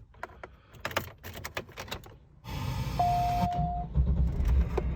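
A series of clicks as the car is handled. About two and a half seconds in, the car's engine starts and settles into a low, steady running. A single electronic dashboard beep sounds shortly after.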